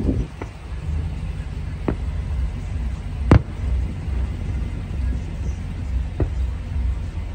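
Distant aerial fireworks bursting: four sharp bangs a second or more apart, the loudest a little past three seconds in, over a steady low rumble.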